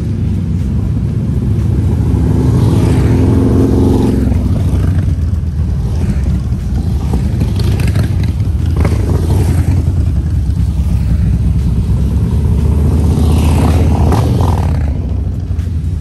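Motorcycle engines running on a group ride: a steady low engine and road rumble, louder from about two seconds in until near the end.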